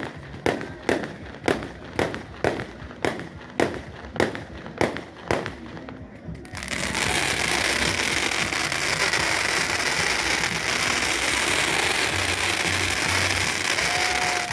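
Fireworks: a run of about ten sharp bangs, roughly two a second, then about halfway through a dense, continuous crackling rush that holds steady and loud to the end.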